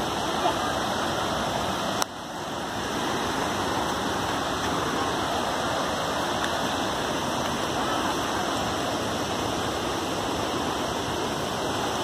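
Steady rushing of falling water from a nearby waterfall, a constant even roar that dips briefly about two seconds in and then comes back.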